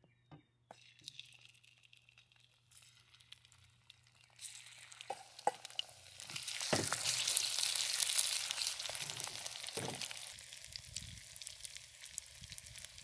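Marinated sliced beef frying in hot vegetable oil in a wok. The sizzle starts about four seconds in, is loudest shortly after, then settles to a steady sizzle, with a few knocks of the spatula against the wok.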